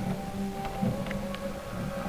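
Background music playing, with steady held notes and a few short higher notes.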